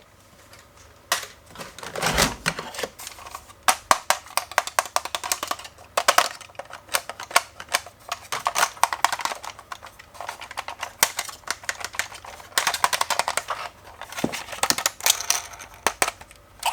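Hands handling a toy and its plastic packaging: irregular quick clicks and crackles in clusters, with a soft thump about two seconds in.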